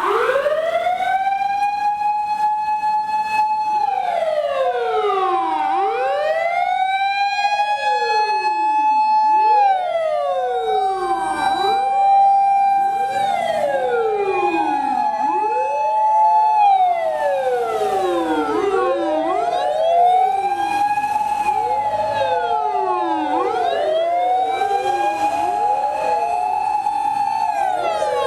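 Several fire engine sirens wailing together, starting suddenly at the beginning. Each slowly rises to a held high note, holds it for a few seconds, then slides back down, the sirens overlapping out of step with one another.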